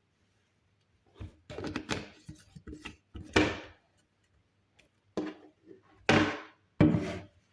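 A blender jar and its lid being handled and set in place: a string of knocks and clunks, loudest a little past the middle and near the end.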